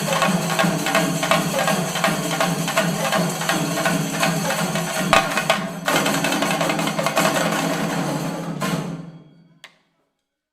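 Shinkari melam: chenda drums beaten with sticks and ilathalam hand cymbals playing a fast, dense rhythm. It breaks off briefly a little past halfway, picks up again, then dies away about nine seconds in, with one last stroke just before the end.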